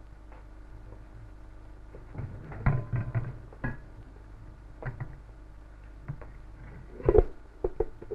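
Metal gelatin mold and cut-glass platter knocking and clattering as a fruit aspic is turned out. There are a few clunks about two to four seconds in, then a loud knock followed by a couple of short clicks near the end, over a steady hiss.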